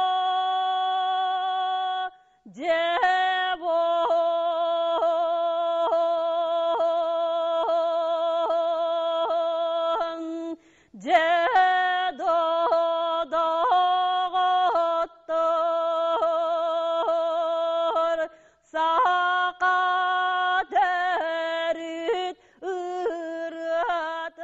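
Music: a solo voice singing long held notes in a narrow, chant-like melody, in phrases separated by short breaths, some opening with a quick upward slide.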